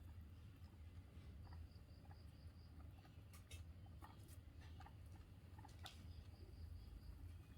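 Guinea pig chirping faintly: a quick run of short, high, evenly spaced chirps, about five a second, starting about a second and a half in and again near the end. A few soft clicks fall between the runs, over a steady low hum.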